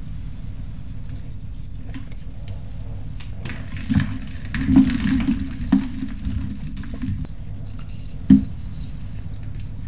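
Reformed gym chalk crunching and crumbling in irregular bursts, most of them between about four and six seconds in and one sharp crunch near eight seconds, over a steady low hum.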